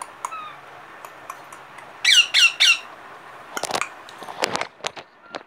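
Indian ringneck parrot giving three harsh squawks in quick succession about two seconds in, followed by several sharp knocks.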